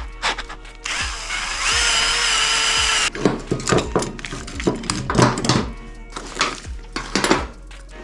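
A handheld power tool runs for about two seconds, its pitch stepping up partway through before it cuts off suddenly. Short knocks and clicks follow, over background music.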